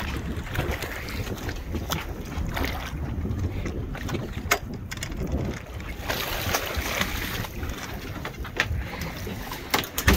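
Wind buffeting the microphone on an open boat, a constant rough rumble with scattered knocks. About six seconds in comes a burst of splashing water as a hooked amberjack is netted at the surface beside the hull.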